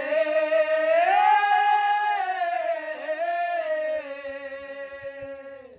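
A singer holding one long, drawn-out note in a Bengali devotional folk song. The pitch rises about a second in, dips briefly about three seconds in, and fades near the end.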